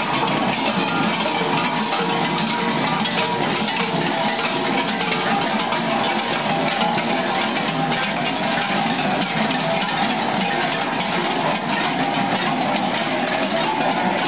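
Many large metal zvončari bells, worn at the waist by a marching group of Halubajski bell-ringers, clanging continuously in a dense, unbroken din as the wearers stride and swing their hips.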